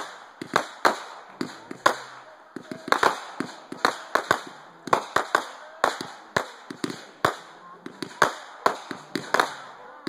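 Fireworks bursting overhead in rapid, irregular succession: a string of sharp bangs and pops, several a second, some in quick clusters, with crackling between them.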